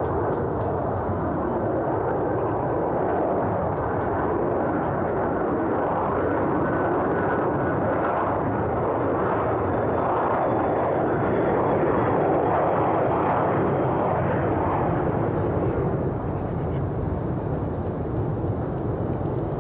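Jet airliner's engines on a low approach: a loud, steady drone with a faint high whine in the middle, easing off slightly about 16 seconds in.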